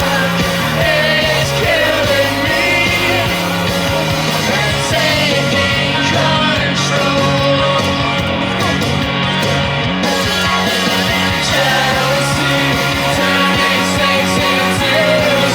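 Rock music played in a DJ set, with some singing. The deep bass thins out a few seconds in, and the highs are filtered off for several seconds in the middle before coming back.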